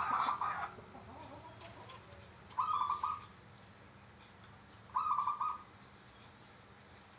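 Zebra dove (perkutut) cooing: three short coos of quick repeated notes, one at the start, one about two and a half seconds in and one about five seconds in.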